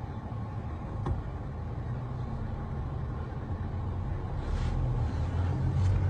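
Steady low rumble of a motor vehicle, growing slowly louder toward the end.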